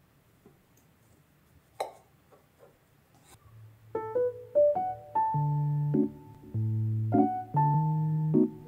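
Near silence with a single faint click, then background piano music starts about four seconds in, playing slow melody notes over sustained chords.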